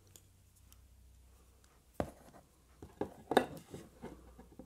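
A few light knocks and clicks as steel calipers are handled and set against the edge of a Valchromat (coloured MDF) board in a cardboard box, the loudest cluster a little after three seconds in, over a faint low hum.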